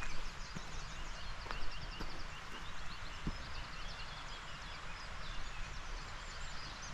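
Small songbirds singing in quick, high, repeated notes and short trills over a steady outdoor hiss.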